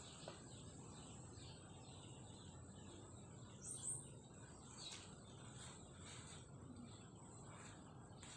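Faint outdoor background: small birds chirping now and then over a thin, steady high hiss, with one brief, louder chirp about four seconds in.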